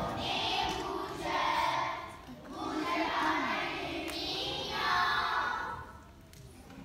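A group of young children singing a song together, the last phrase fading out about six seconds in.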